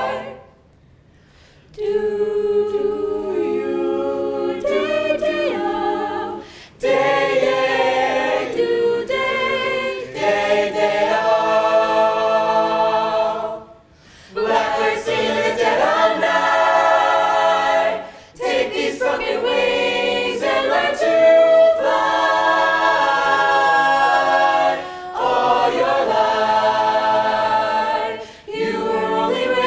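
Mixed high school a cappella choir singing in harmony without instruments, in phrases broken by short pauses, with a pause of about a second and a half near the start.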